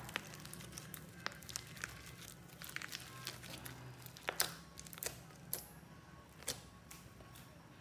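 Clear slime mixed with soft clay being squeezed and pulled apart by hand, giving a scatter of sharp, sticky clicks and pops, the loudest about four and a half seconds in.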